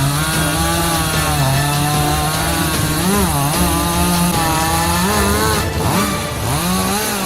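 Chainsaw running at high revs while cutting, its pitch dipping and recovering about four times as the chain bogs in the wood.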